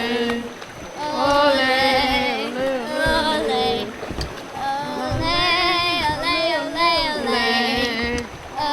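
Voices singing a melody with long held notes, broken by short pauses.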